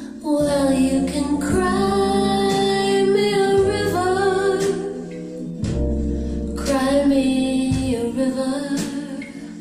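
A song with a singer over held chords, played through DIY floorstanding loudspeakers (Zaph SR71 design, Seas ER18RNX woofer and Seas 27TBCF/G tweeter) driven by an LM3886 Gainclone amplifier and heard in the room. Deep bass notes come in a little past the middle.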